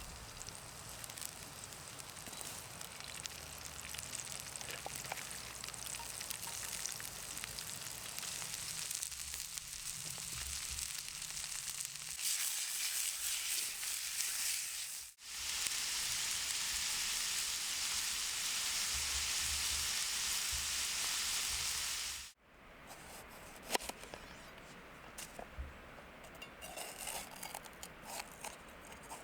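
Food sizzling as it fries over a campfire, a steady hiss in three cut sections. The middle section is the loudest. The last is quieter, with scattered clicks and taps.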